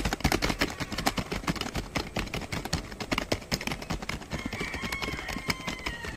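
Rapid, irregular keyboard typing, many quick key clicks in a dense run. Near the end a faint high tone slides downward.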